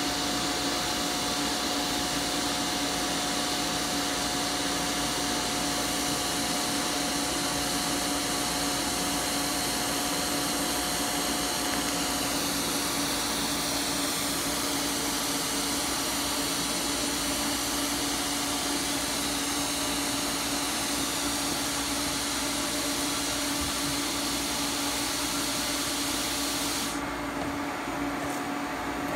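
TIG welder running a steady arc on 304 stainless steel, a constant hiss over a steady hum. About twelve seconds in the arc stops, and the argon post-flow keeps hissing through the torch cup until the gas cuts off sharply near the end, leaving only the hum.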